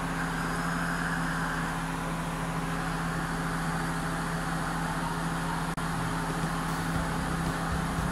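Car engine idling with the air-conditioning blower fan on maximum, heard inside the cabin: a steady low hum with an even rush of air over it.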